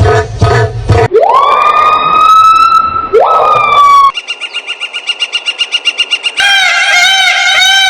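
A run of siren tones: a wail that rises and holds for a few seconds, then a fast pulsing beep for about two seconds, then a rapid up-and-down warble near the end.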